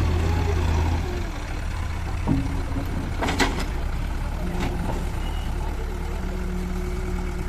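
Diesel engine of a backhoe loader running steadily with a low drone, with a few sharp metallic clanks about two, three and a half and four and a half seconds in.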